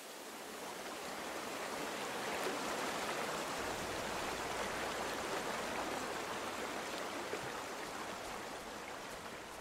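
Steady rushing and babbling of a flowing stream, fading in over the first couple of seconds and easing slightly near the end.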